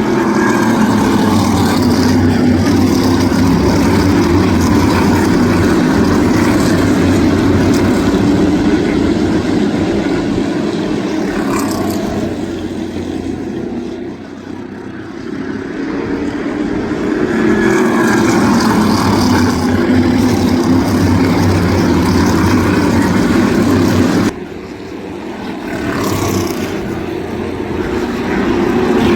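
Crate-engine V8 modified race cars running flat out on an asphalt oval, the engine noise swelling as the cars come by and fading as they move away, twice. About three-quarters of the way through it drops off suddenly, then builds up again.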